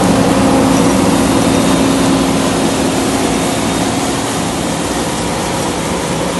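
John Deere 9580i WTS combine harvester running at work, threshing as it passes close by and moves away. A steady dense machinery noise with a low hum slowly gets quieter as it goes.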